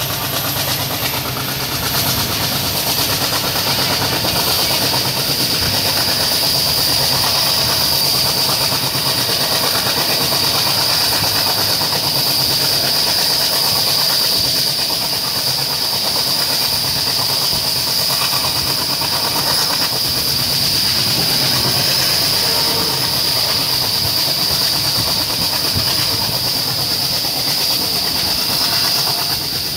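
Passenger train running at speed, heard from an open coach doorway: a steady rush of wheels on rail and passing air, with a constant high-pitched hiss over it.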